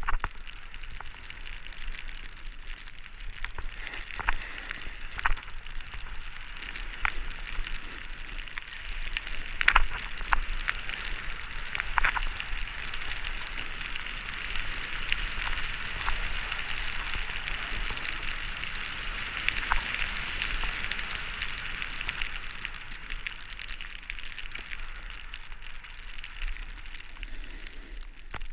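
Snowboard sliding and carving over packed snow: a steady scraping hiss with scattered sharp clicks and knocks.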